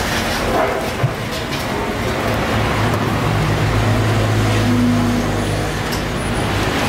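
Road traffic noise with a motor vehicle engine humming past, loudest from about two and a half to six seconds in. There is a single sharp click about a second in.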